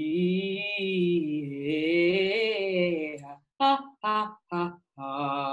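Young soprano singing a vocal exercise: a long held note with a slow vibrato over a steady keyboard chord, then three short detached notes and another held note near the end.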